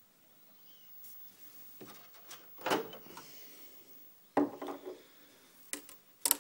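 Handling noises: a series of knocks and short rubbing scrapes. The loudest come about three seconds in and again at about four and a half seconds, with a sharp knock at the end.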